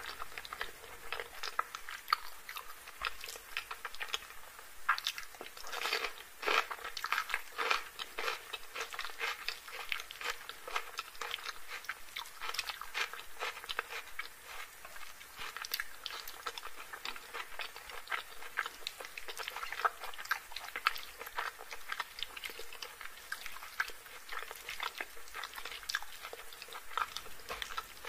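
Close-miked chewing and wet mouth sounds of a person eating chicken curry and rice by hand: a dense run of small clicks and smacks, busier about six seconds in and again around twenty seconds.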